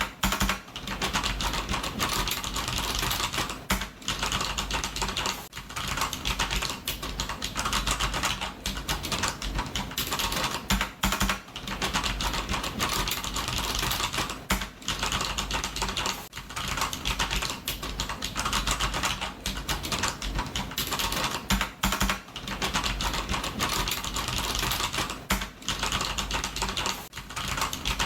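Computer keyboard being typed on rapidly, a dense run of key clicks broken by brief pauses every second or two.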